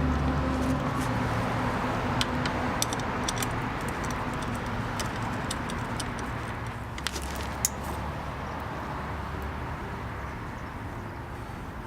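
Scattered light metallic clicks and clinks of hand tools on a bolt being threaded into a motorcycle engine-guard bracket. A low steady hum sits underneath, fading in and out.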